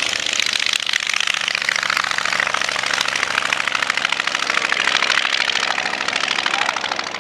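Ryan PT-22 Recruit trainer's five-cylinder Kinner radial engine at full takeoff power, a loud rapid rattling beat as the plane rolls and lifts off. It fades slightly near the end as the plane climbs away.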